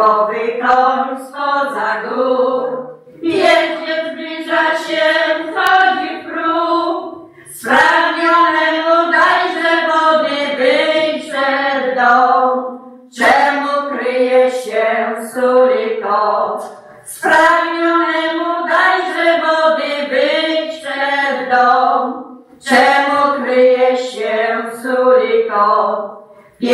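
A small group of women singing a song together unaccompanied, in sung phrases of four to five seconds with short breaths between them.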